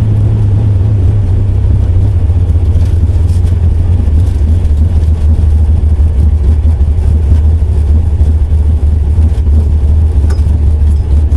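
Drag racing car's engine idling rough and loud, running steadily without revving.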